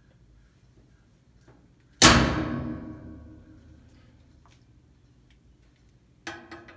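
A loud metallic clang about two seconds in, ringing on and fading over a second and a half, then a second, weaker clang with a short ring near the end.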